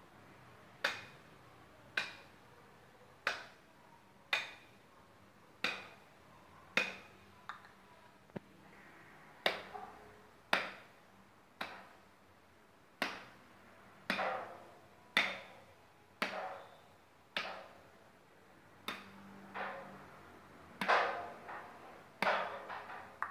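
A large knife chops again and again into a hanging goat carcass, hacking through bone along the backbone and ribs. The blows land about once a second as sharp knocks, and the last few are heavier and more ragged.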